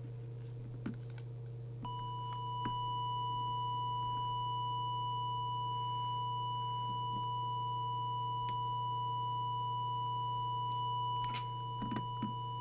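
Steady 1 kHz test tone from a small audio oscillator held to a CB radio's microphone. It starts about two seconds in and is used to drive the transmitter while the transmit deviation is set. A steady low hum lies underneath.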